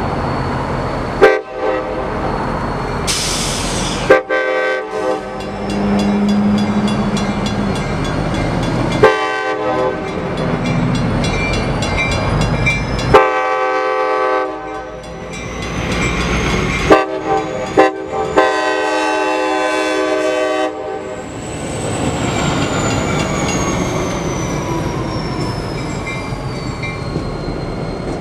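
Locomotive air horn, a Nathan K5LA multi-chime, sounding a run of long blasts with a short one before the last: the grade-crossing warning as the train approaches. The crossing's mechanical bell rings steadily under the horn while the gates lower, and the locomotive's diesel rumbles beneath it all.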